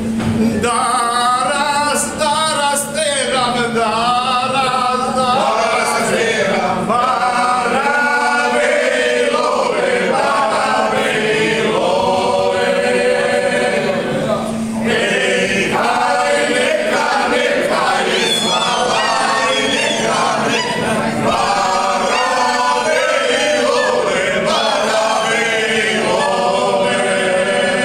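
A mixed group of men's and women's voices singing a traditional Banija folk song together, unaccompanied, in long phrases with short breaks for breath.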